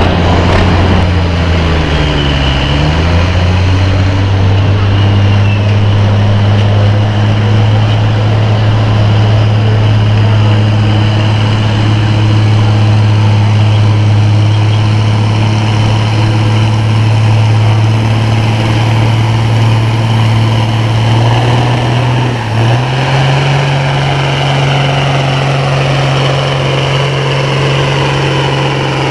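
Farm tractor engine running hard at steady revs while pulling the sled. Its pitch dips briefly near the start, then holds steady, then steps up about 22 seconds in.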